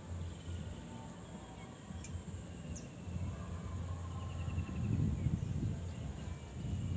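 Countryside ambience: a steady high insect drone, faint trilling bird calls, and a low rumble that swells about five seconds in.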